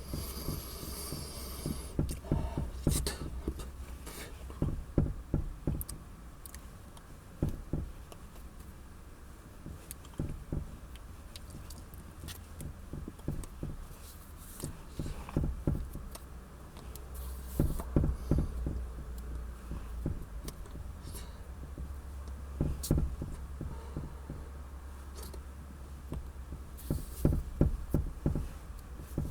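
Irregular clicks and knocks, some in quick clusters, over a low steady hum: handling noise from work on the vehicle's parts and tools.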